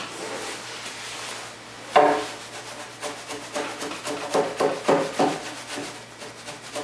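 A timber-framing slick scraping across the cheek of a white pine tenon to clean it up, in a run of short strokes at about three a second, with one sharper, louder stroke about two seconds in.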